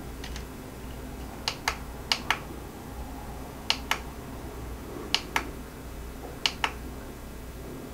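Plastic menu buttons on an iRangeX IR8M radio-control transmitter being pressed about five times, a second or more apart, each press a quick pair of clicks, as the cursor steps down the menu.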